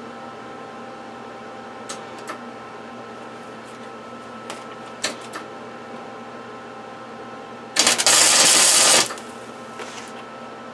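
Wire-feed welder laying one tack weld on a steel nut. The arc runs loud for just over a second, about eight seconds in, over a steady background hum with a few light clicks before it.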